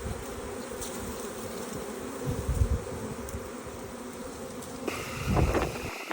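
A honeybee swarm buzzing steadily, close to the microphone, with low rumbles of handling or wind on the microphone, loudest about two and a half seconds in and again near the end.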